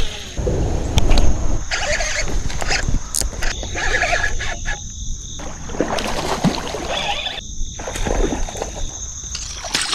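Close, irregular handling noise from fishing with a baitcasting rod and reel, with uneven rustles and clicks, over a steady high-pitched insect drone.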